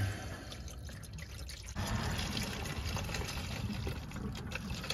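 Engine coolant pouring in a thin stream from a disconnected hose at the exhaust gas heat exchanger, splashing into a drain pan as the cooling system drains out. The splashing gets louder a little under two seconds in and then runs steadily.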